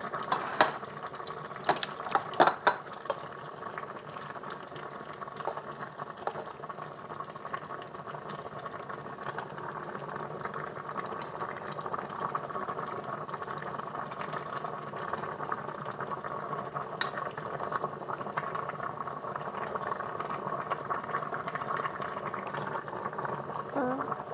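Water boiling steadily in a saucepan of potatoes, carrots and broccoli. Scattered sharp clicks of metal tongs knock against the pan as the broccoli is lifted out, most of them in the first few seconds.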